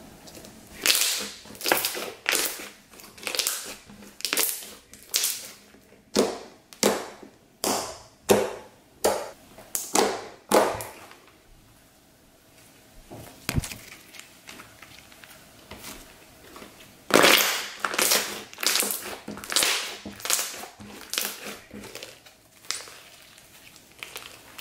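Purple glitter slime being squeezed and kneaded by hand: a series of short squishes, a little more than one a second, that die down for a few seconds in the middle and then start again.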